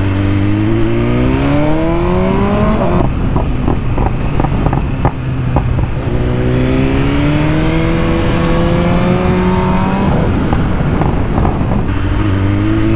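Four-cylinder 1000 cc BMW sportbike engine heard from the rider's seat, revving up under acceleration, then going off the throttle about three seconds in with a run of sharp pops. It pulls up again, then the revs drop as the bike slows.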